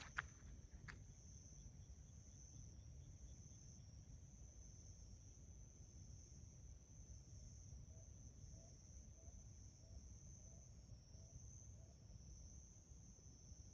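Night insects trilling steadily and faintly. There are two small clicks in the first second, and a faint short call repeats about every half second for a few seconds past the middle.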